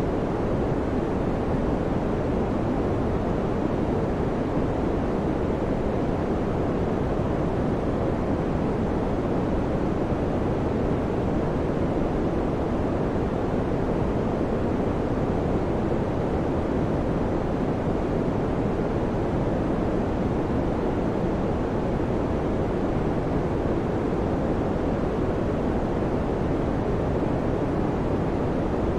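Electric fan running steadily, a constant whooshing noise weighted toward the low and middle range, with no change in level.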